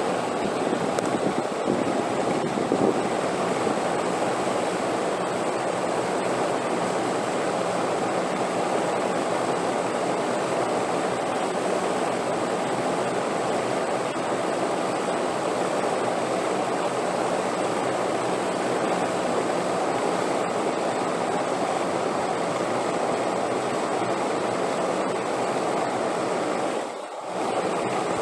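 Steady rushing wind, an even noise without gusts, dipping briefly in level near the end.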